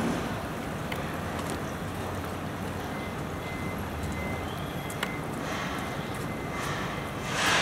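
Steady rush of shallow flowing water with a low rumble underneath, swelling briefly into louder hiss a few times near the end.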